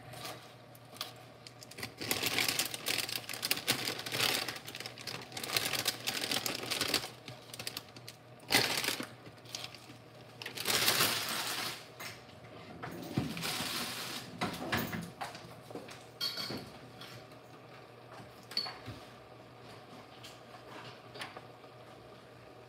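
Kitchen handling noises: spinach leaves rustling and being dropped from a plastic bag into a pot, with irregular clicks and knocks of things being handled. The clatter thins out to a few faint knocks over the last several seconds.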